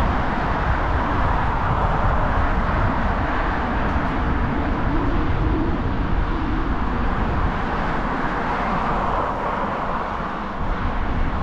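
Wind rushing and rumbling over the microphone of a moving bicycle, over steady street traffic noise.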